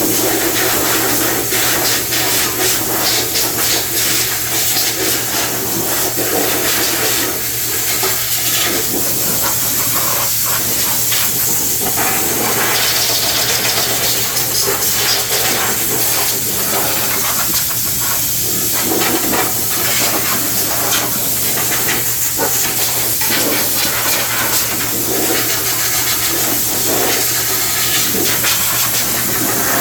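Loud, steady hissing spray of high-pressure cleaning, with a steady low hum underneath and a flickering, spattering texture.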